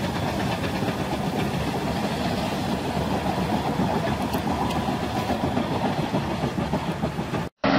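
Heavy diesel engines running steadily. The sound cuts off abruptly near the end.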